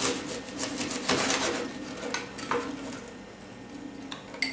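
A knife sawing through the crust of a crusty homemade sourdough loaf, a quick run of scratchy rasping strokes in the first second and a half, then a few light knocks on the cutting board. Near the end comes a short metallic clink of cutlery.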